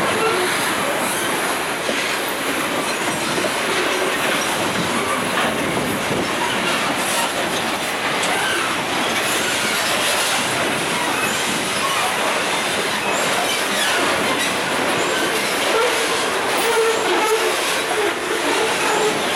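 Freight wagons of a Rumo/ALL train, covered grain hoppers and boxcars, rolling past close by: a steady rumble and clatter of steel wheels on the rails, with a wheel squeal coming in late on.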